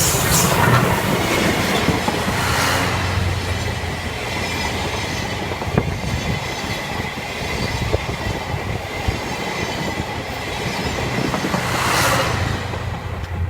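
Train of 12-series passenger coaches hauled by the steam locomotive C57 180 rolling past, wheels clattering over the rail joints, with a few louder swells.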